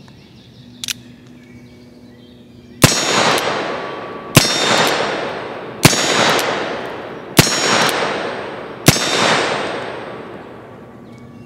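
EMF Pony Express single-action revolver (Pietta-built) firing five shots of .38 Special black-powder ammunition, evenly about a second and a half apart, each shot followed by a long echo. A faint click comes about a second in, before the first shot.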